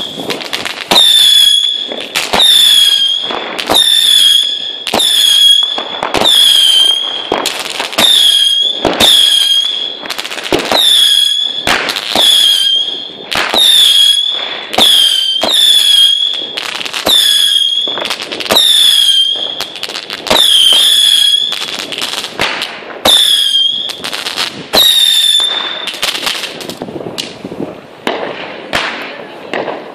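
Phönix RAMSES firework battery firing whistling shots in quick succession, about one a second, each a short high whistle with sharp bangs and crackle. The shots stop about 26 seconds in, leaving fainter crackling.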